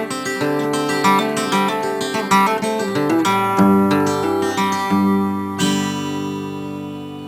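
Guitar music, picked notes and strummed chords, ending on a last chord about five and a half seconds in that rings on and fades away.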